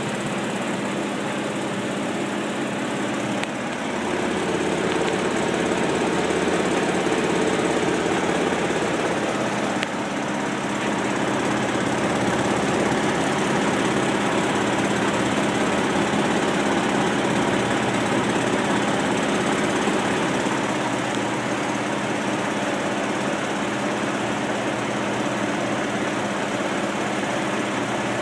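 Top-loading washing machine in its spin cycle, the tub spinning fast with a steady mechanical running hum. It gets louder about four seconds in.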